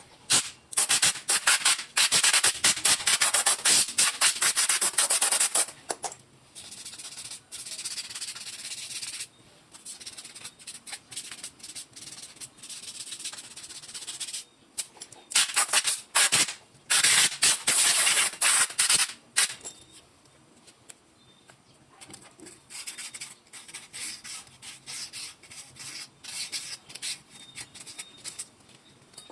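240-grit sandpaper rubbed back and forth by hand over a car's rear drum-brake parts (drum and brake shoe), scuffing off the dirt and glaze blamed for the brake squeak. Rapid scraping strokes, hard and loud in two long spells, lighter and quieter in between and toward the end.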